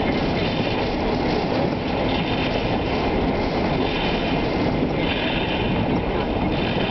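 Storm wind blasting across the microphone: a loud, steady, rumbling roar with no letup.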